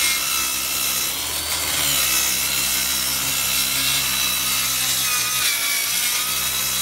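Electric power saw cutting through marine plywood: the motor's whine wavers in pitch as the blade loads up in the cut.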